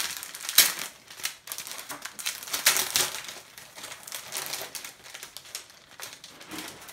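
Thin clear plastic sleeve crinkling as printed instruction pamphlets are handled and pulled out of it, irregular, with louder crackles about half a second in and again about three seconds in.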